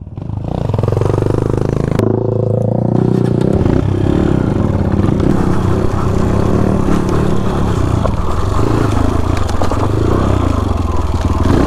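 Yamaha WR155R's single-cylinder four-stroke engine running as the bike pulls off and rides on, its pitch rising and falling with the throttle. A sharp click comes about two seconds in.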